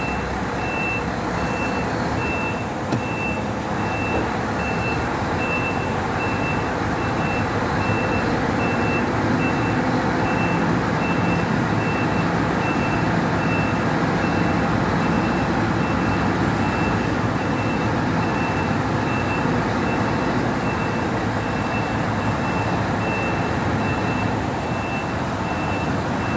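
A truck's reversing alarm beeping at an even pace all through, with short evenly spaced beeps, over the steady running of a Scania 164L 580's V8 diesel engine as the truck backs up slowly, heard from inside the cab.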